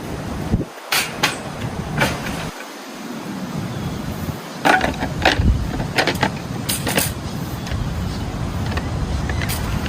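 Strong gusty wind buffeting the microphone, a low uneven rumble that drops out for a moment several times. Sharp clicks and knocks are scattered through it.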